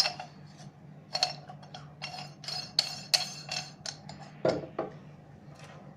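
Aluminium pipe fittings and parts clinking and tapping as they are handled: about a dozen irregular light metallic strikes over a low steady hum.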